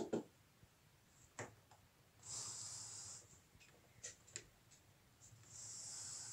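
Two faint hisses of air, the first about a second long and the second about two seconds, with a few light clicks and taps in between.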